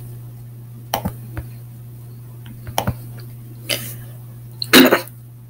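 Steady low hum picked up by a computer microphone, with a few sharp clicks about one second and three seconds in, then a short loud vocal sound near the end.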